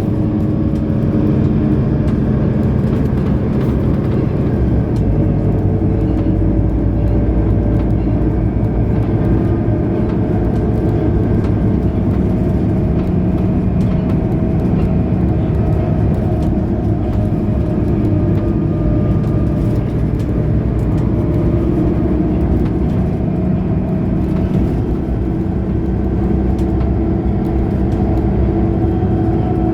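Mercedes-Benz O530 Citaro Facelift Ü bus driving, heard from inside: its diesel engine and drivetrain run steadily under way, the engine note drifting up and down a little with speed.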